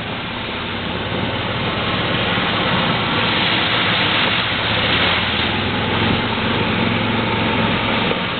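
Golf cart under way, its motor running with a steady low hum beneath a loud rushing noise that swells about three to five seconds in.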